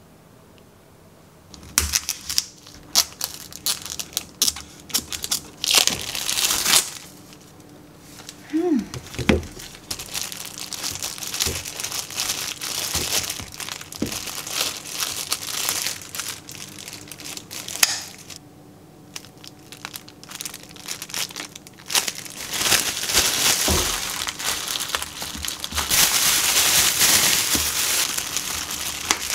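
Thin disposable plastic gloves and plastic bags crinkling in irregular bursts as dried figs are handled and bagged, starting about two seconds in and growing denser and louder near the end. A brief squeak sliding up and down about nine seconds in.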